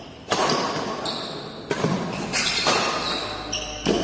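Badminton rackets striking a shuttlecock in a fast rally: about six sharp hits, each echoing in the large hall.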